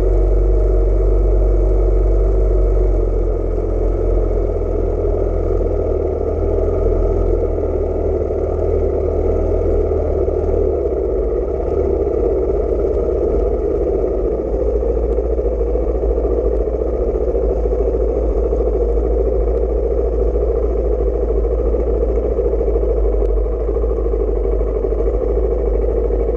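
Honda XR600's single-cylinder four-stroke engine running steadily as the motorcycle rides along a dirt road, heard from on the bike.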